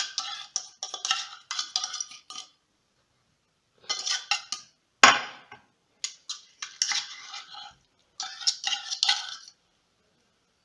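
Metal spoon scraping and clinking inside an open tin can of tuna in several bursts, with one sharp knock about halfway through.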